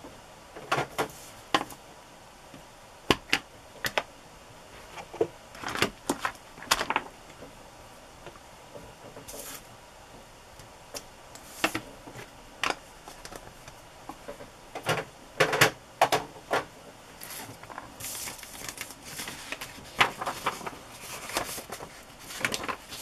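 Irregular clicks and taps of small objects handled on a craft table, with some paper handling: plastic ink pad cases and paper pieces picked up and set down. The busiest run of taps comes about two-thirds of the way through.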